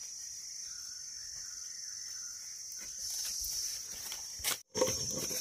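Steady high-pitched chirring of forest insects, with a few soft clicks and rustles from the leaf litter; the sound cuts out for a moment near the end.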